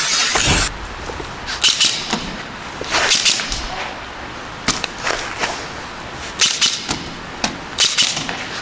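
Airsoft guns firing: sharp pops at irregular intervals, some single and some in quick clusters of two or three, after a loud rushing burst in the first half second.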